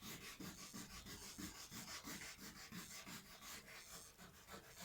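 Faint hand sanding with fine wet sandpaper on a guitar body, quick even back-and-forth rubbing strokes.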